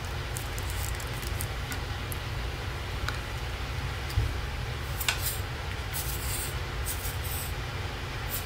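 Soft rustles and small clicks of card paper and a craft bottle being handled by hand, a few short bursts about halfway through and near the end, over a steady low hum.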